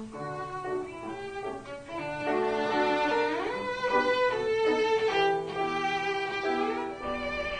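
Cello played with the bow: a melody of held notes, with pitch slides between some of them.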